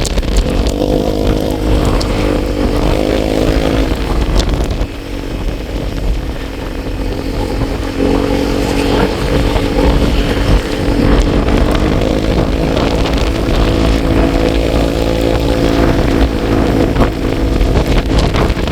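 Vehicle engine running under way, with steady road and wind rumble; the engine note drops away for a few seconds about four seconds in, then comes back.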